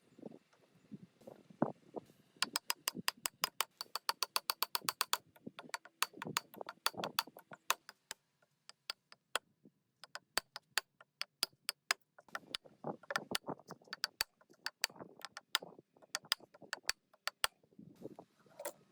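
Hand tools working on metal parts: irregular clicks and dull knocks. About two and a half seconds in comes a quick even run of ticks, about ten a second, lasting nearly three seconds, like a ratchet being worked.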